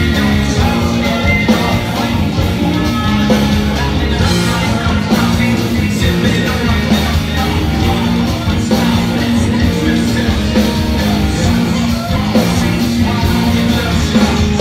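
Loud rock music with singing over a steady, driving bass line.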